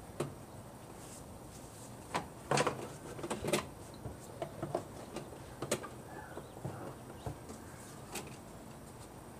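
Plastic clicks and knocks from the BMW 328i's air filter housing and intake duct being handled and pushed into place: a scattering of sharp clacks, the loudest about two and a half to three and a half seconds in.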